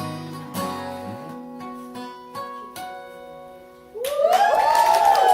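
Acoustic guitar's last strummed chords ringing out and fading. About four seconds in, clapping and cheering voices break out loudly.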